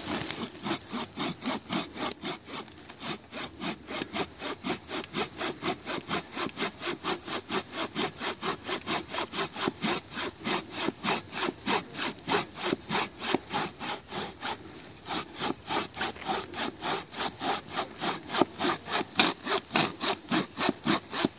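Silky hand saw cutting through a thick log, with steady back-and-forth strokes at a quick, even rhythm of about four a second.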